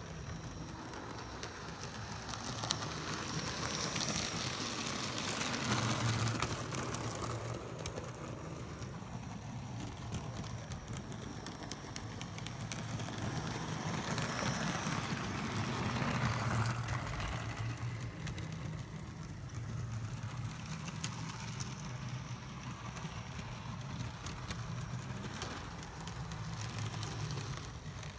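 OO gauge model trains running on garden track: a steady hum from their small electric motors with a rattle of wheels on the rails. It swells twice as trains pass close.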